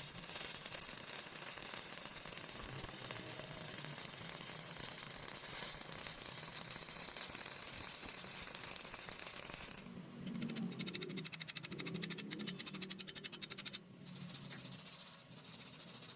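Welding arc crackling and sizzling steadily; about ten seconds in it changes to a fast, even buzzing rattle for a few seconds, then returns to a hiss.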